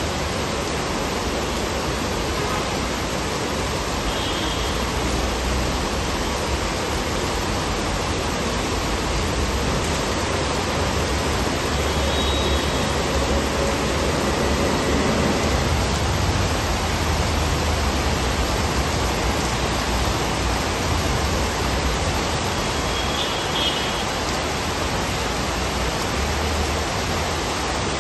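Heavy rain pouring onto paving stones and streets, a steady dense hiss with a low rumble underneath.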